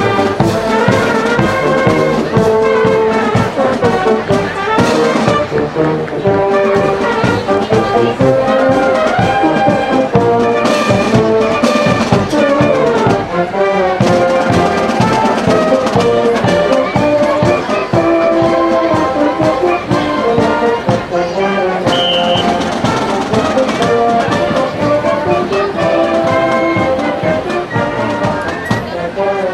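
High school marching band playing a march: brass and sousaphones carry the melody over a steady drum beat.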